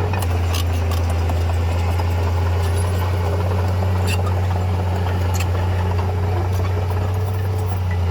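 Heavy diesel engine of earthmoving machinery running steadily at a constant low drone, with a few sharp clicks or knocks over it.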